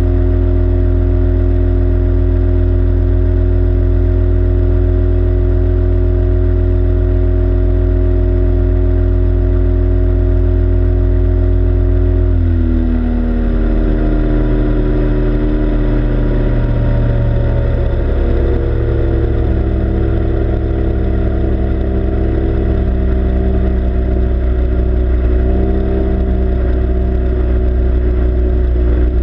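Yamaha two-stroke outboard motor on an inflatable boat running steadily at speed, then throttled back about twelve seconds in, its pitch falling and settling at a lower, slightly wavering running speed.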